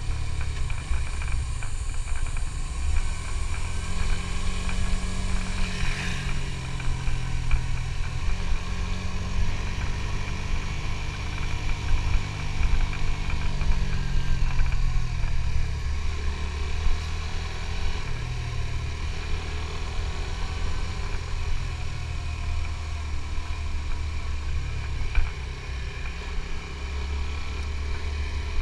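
Suzuki GSX-S150's single-cylinder engine running under way on the move, with a low rumble beneath it. The engine note rises in pitch a few seconds in, holds, then falls away around the middle.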